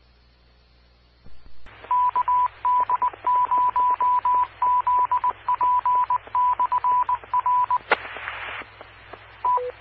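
Amateur radio repeater sending its Morse code identification: a steady beep keyed on and off in short and long pieces over radio hiss. It ends with a sharp click, a short burst of hiss, and a quick two-note courtesy beep that drops in pitch.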